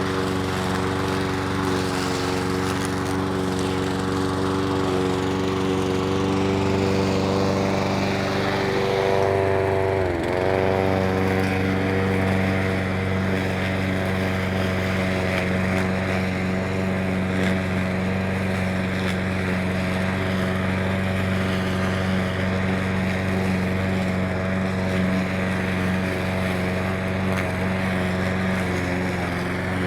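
Petrol lawn mower engine running steadily. About ten seconds in its speed sags briefly and then picks back up.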